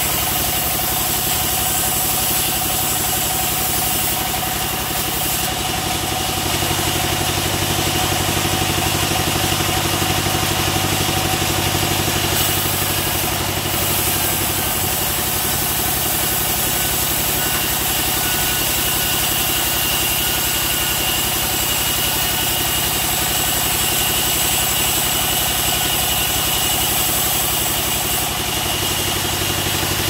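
Large band sawmill running steadily as a long teak beam is fed through the blade. A constant droning hum with a fine, even low pulse carries a steady high whine over it.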